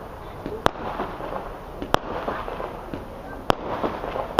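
Consumer fireworks bursting in the air: three sharp bangs about a second and a half apart.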